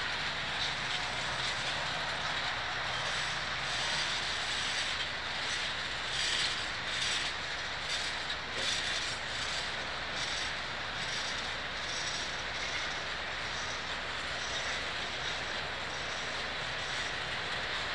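Freight train's gondola cars rolling past on steel rails: a steady rolling rumble and hiss of wheels on track, with a run of wheel clicks over a few seconds near the middle.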